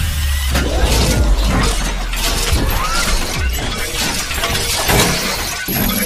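Intro sound effects: a run of glass-shattering crashes, with a deep rumble under them for roughly the first two seconds.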